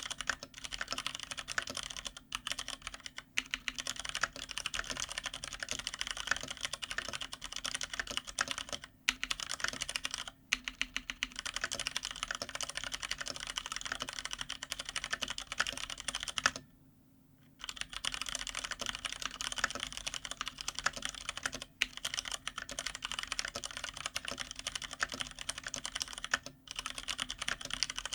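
Fast, continuous typing on a GTune GK993B SKY mechanical keyboard with stock, unlubed Cherry MX Brown switches, on a desk pad. The typing stops for about a second just past the middle, with a few shorter breaks.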